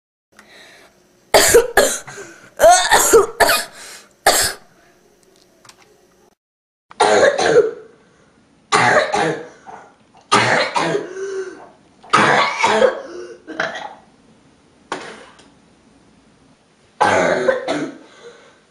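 A person coughing and clearing their throat again and again: a quick run of sharp coughs in the first few seconds, then, after a pause, longer rasping throat-clearing bursts every second or two.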